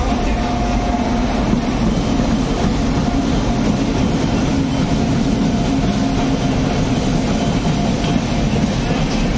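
Indian Railways WAP-7 electric locomotive and its chair-car coaches rolling past at low speed: a steady rumble of wheels on rail, with a faint steady hum underneath.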